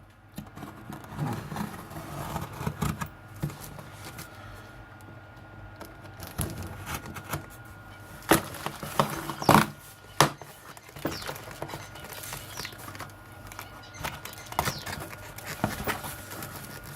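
Cardboard box and packing material being handled: scattered rustles, scrapes and small knocks, with a few sharper knocks about eight to ten seconds in.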